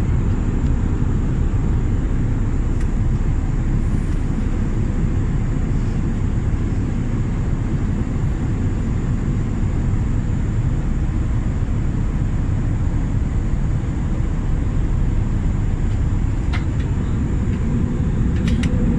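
Steady cabin noise inside an Airbus A319 in flight: a low, even roar of engines and airflow, with a few faint clicks near the end.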